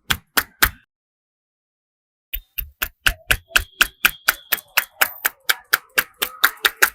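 Massage strokes in quick succession: a barber's hands slapping and chopping on a client's head, about five sharp strikes a second. The strikes stop for about a second and a half of dead silence soon after the start, then resume at the same pace.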